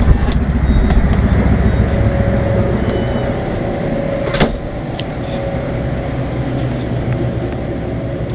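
Car running with a low rumble that eases off about two seconds in, as it comes to a stop, then a single sharp knock about halfway through.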